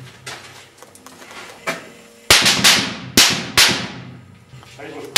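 Rifle shots heard from the target pit, with sharp cracks of bullets arriving at the targets: a faint one, then four in quick succession about two seconds in, and another at the very end.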